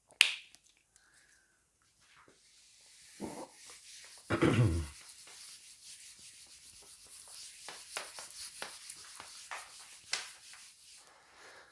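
Felt whiteboard eraser wiping across a whiteboard, a continuous rubbing hiss in repeated swishing strokes. A sharp click comes just at the start and a brief low thud about four seconds in.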